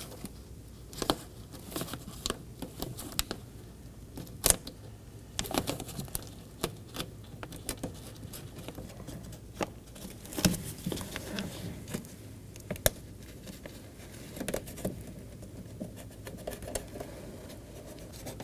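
Plastic vapor barrier being peeled away from the adhesive on a car's inner door panel: irregular crinkling, crackling and small sharp clicks.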